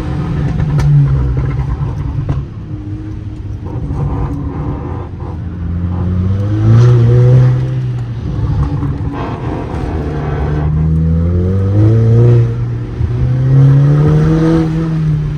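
Mk6 Volkswagen Golf GTI's 2.0-litre turbocharged four-cylinder engine driven hard on track, its pitch climbing several times and dropping back between gear changes and lifts.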